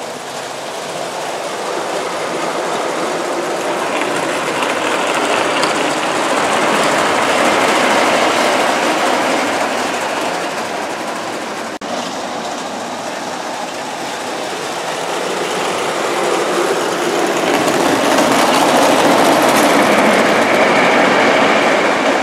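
Bassett-Lowke O gauge live-steam Enterprise locomotive and tender running round tinplate track, a continuous rattling rumble of wheels on rails. It grows louder and fades away twice as the engine laps past.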